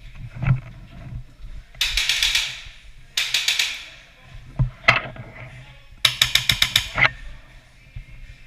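Airsoft guns firing three rapid full-auto bursts, the last and sharpest about a second long at roughly nine shots a second, with a couple of single sharp shots in between.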